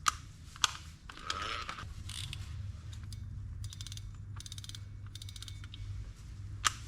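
Okuma Epix EB80 baitrunner spinning reel, freshly serviced, being worked by hand: a couple of single clicks, then several short runs of rapid clicking from its mechanism in the middle.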